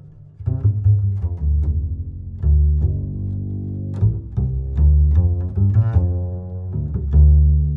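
Background music: a tune of short, sharply struck pitched notes over low held bass notes.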